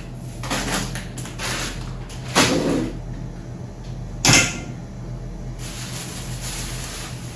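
Kitchen handling noises: a cupboard opened and shut and things knocked and set down, with a louder rustling clatter a couple of seconds in and the sharpest knock about four seconds in.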